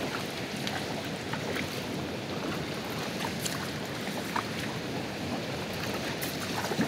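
Double-bladed kayak paddle strokes from an inflatable paddleboard: a steady wash of water with a few small drips and splashes scattered through it.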